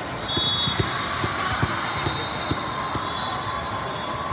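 Busy indoor volleyball tournament hall: volleyballs being hit and bouncing on the sport court floors, with steady crowd chatter. A short high referee's whistle sounds about half a second in.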